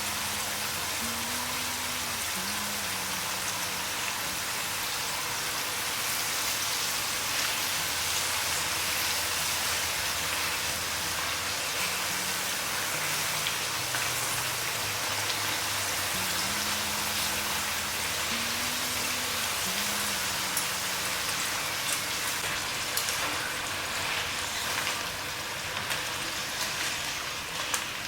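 Sweet potato slices deep-frying in hot oil: a steady, dense sizzle with scattered crackles and pops, which grow more frequent near the end.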